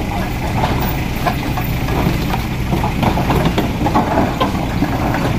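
Heavy diesel engine idling steadily with a low, even hum, with scattered faint clicks and knocks over it.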